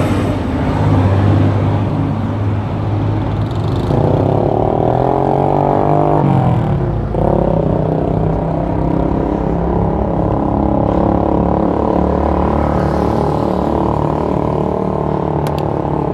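Motor vehicle engine running close by, its pitch rising about four seconds in as it speeds up, then holding a steady drone, over road noise.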